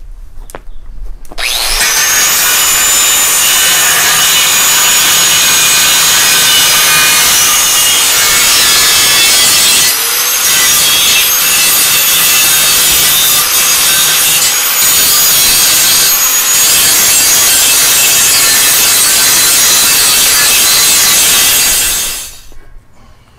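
Handheld power tool working metal. Its motor spins up about a second and a half in and runs under load for about twenty seconds with a loud abrasive hiss and a high whine, easing off briefly near the middle, then winds down.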